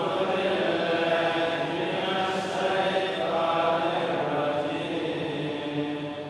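A man's voice reciting the Qur'an in slow melodic chant, holding long notes that bend slowly in pitch.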